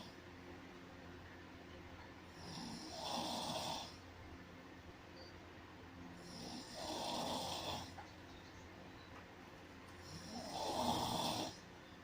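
A person snoring in slow, regular breaths, three snores about four seconds apart, each lasting a second and a half or so.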